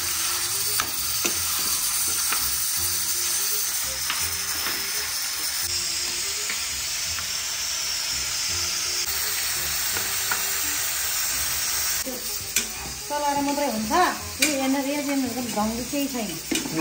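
Meat sizzling as it fries in a pan over a low flame, stirred now and then. The sizzle drops about twelve seconds in, and a voice with rising and falling pitch comes in near the end.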